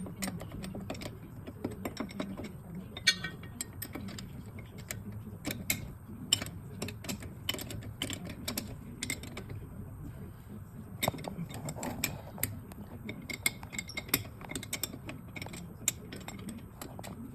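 Rapid, irregular clicking and clinking of a ratchet and spanners on nuts and bolts, as the bolts joining the propshaft to the axle are done up, in sped-up footage.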